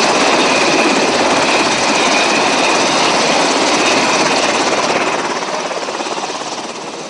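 Military helicopter noise: a loud, steady rush with a faint high whine above it, easing off after about five seconds.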